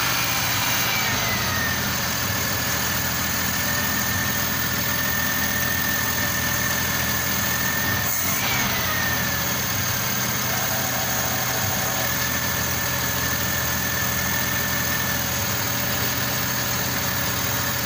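Suzuki F6A three-cylinder multicab engine idling steadily, with a thin high whine that dips in pitch twice. The mechanic puts its uneven running and stalling down to one spark plug not firing.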